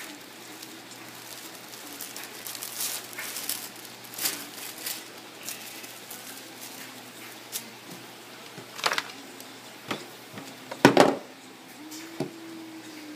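Thin sheets of craft paper rustling and crinkling as they are unfolded and handled, in irregular bursts with a louder crackle about eleven seconds in.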